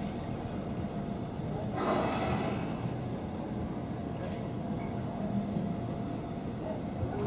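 Steady low rumble of a boat engine running, with a short whoosh about two seconds in: the blow of a surfacing humpback whale.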